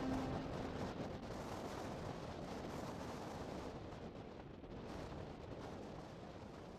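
A steady rushing rumble of storm noise that fades slowly away, with the last music note dying out right at the start.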